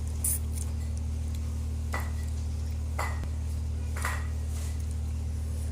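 Three short, light clinks of an eating utensil against a dish, about a second apart, each with a brief ring, over a steady low hum.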